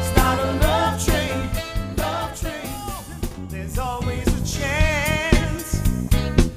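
Soul music in the Motown style: a band with a steady beat and bass, and a wavering melody line.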